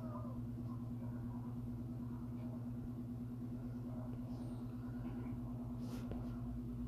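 A steady low hum with a faint background hiss beneath it; no speech.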